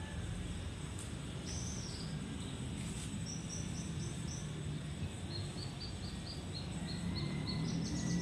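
Small bird chirping in quick runs of short, evenly repeated high notes, over a steady low outdoor background hum.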